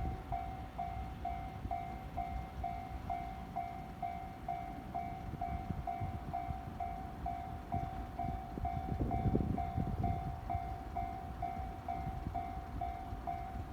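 Japanese level-crossing warning bell ringing on and on, a ding about twice a second, over the low rumble of a 207 series electric train on the line. The rumble swells about nine seconds in.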